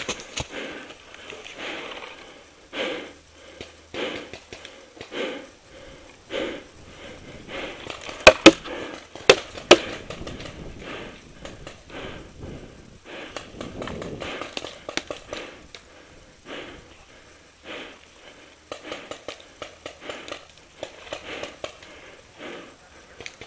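A paintball player breathing hard, close to the microphone, about one breath a second, with the rustle of gear. About eight to ten seconds in come four sharp cracks of paintball fire, in two quick pairs.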